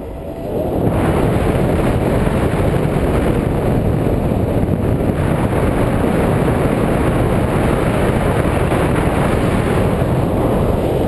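Wind rushing over the microphone of a pole-mounted action camera in paraglider flight, a loud steady rush that builds about a second in and eases slightly near the end.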